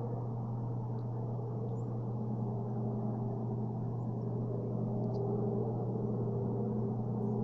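Steady low droning hum built from a few held tones, unchanging in pitch, with a few faint short chirps now and then.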